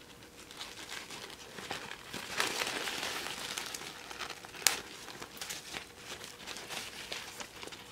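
Rustling and crinkling of a fashion doll's glittery layered skirt and net cape being handled between fingers, with small clicks throughout. It is louder a couple of seconds in, and there is one sharp click a little past halfway.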